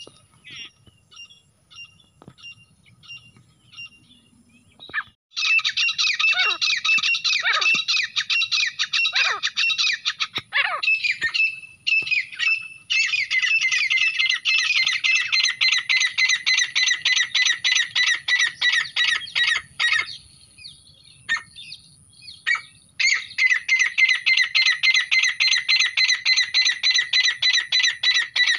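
Grey francolin calls: a few sparse short notes at first, then from about five seconds in long runs of rapid, shrill, repeated notes, three runs with short breaks between.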